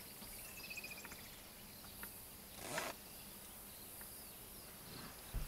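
Faint bush ambience: insects chirping, with thin high chirps early on. There is a short rushing sound about halfway through and a low thump just before the end.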